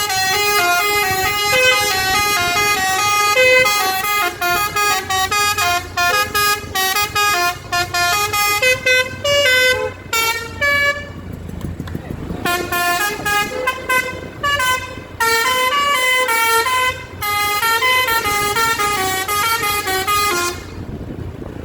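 Indonesian bus basuri (telolet) musical air horn playing a tune in quick stepping notes. It breaks off about halfway through, starts up again, and stops shortly before the end.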